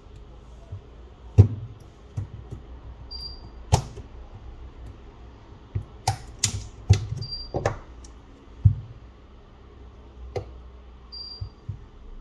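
Irregular clicks and taps of small repair tools and parts being handled on a phone during disassembly, a few of them sharp and loud. A short high beep sounds three times, about every four seconds.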